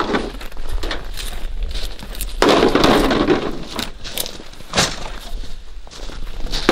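Footsteps crunching on frozen snow and plastic snow goose decoys rustling and knocking as they are handled, with a few sharp knocks about four to five seconds in.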